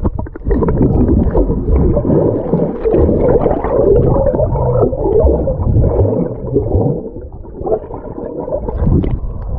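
Muffled churning and bubbling of water heard with the microphone underwater, as a German shepherd paddles and a swimmer's hand sweeps through the water beside it. The sound eases for a moment a little after halfway, then surges again twice near the end.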